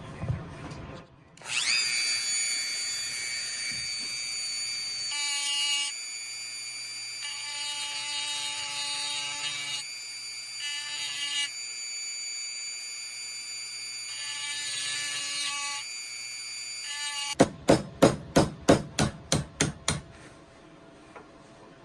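Rotary tool with a grinding stone spinning at high speed, its steady whine dipping and changing as the stone grinds down the head of a steel blade pin on a pocket knife. Near the end the grinding stops and about ten quick hammer taps follow, driving the pin out with a punch.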